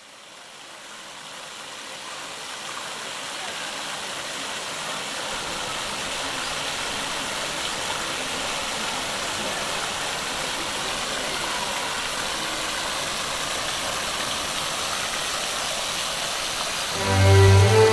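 Steady rush of running water, fading in over the first few seconds; music starts just before the end.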